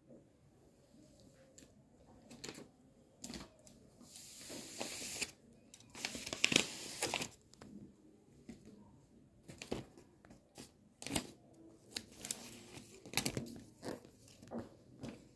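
Irregular rustling and crinkling close to the microphone, with scattered clicks: cloth and a hand moving against the phone. The loudest stretches are about four to five seconds in and again at six to seven seconds.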